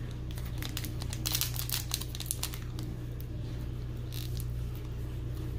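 Foil wrapper of a Pokémon booster pack crinkling as it is handled and opened, with a quick run of crinkles between about one and two and a half seconds in, over a low steady hum.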